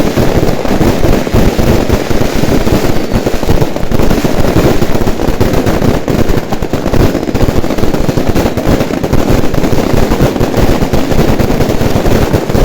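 Fireworks and firecrackers going off in a dense, rapid barrage of bangs and crackles, without a pause.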